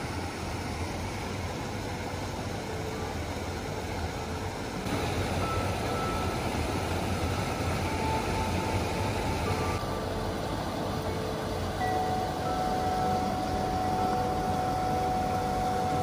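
Steady rush of water from small cascades pouring into rock pools, getting louder about five seconds in.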